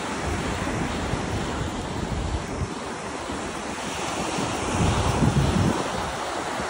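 Ocean surf breaking and washing up the beach, with wind buffeting the microphone in low rumbling gusts that get louder about two-thirds of the way through.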